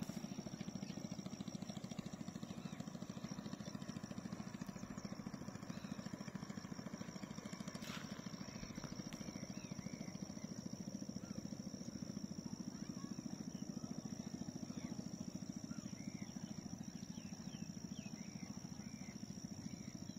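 A small boat's engine running steadily with a fast, even chugging beat.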